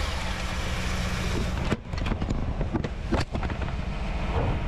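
1994 Camaro Z28's 5.7-litre LT1 V8 idling steadily, with a few clicks and knocks about two to three seconds in.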